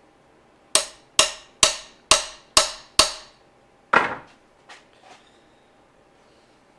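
Six sharp hammer blows about half a second apart, each ringing briefly, followed about a second later by one heavier knock.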